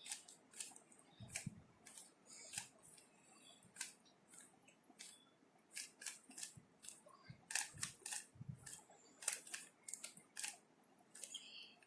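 Plastic 3x3 Rubik's cube faces being turned by hand: faint, irregular clicks and snaps, a few a second, coming faster about two-thirds of the way through as a move sequence is worked.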